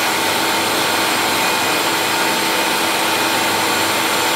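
Grinding spindle running steadily with a constant whine, its abrasive wheel face-grinding the oiled face of an automatic-transmission bell housing.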